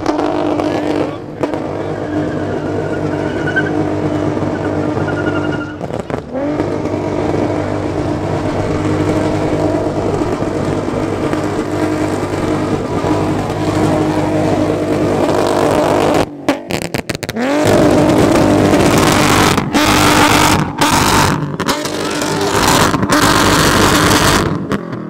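Car engine held steady at high revs during a takeover stunt. From about 18 seconds in it is joined by louder, harsher tire screeching.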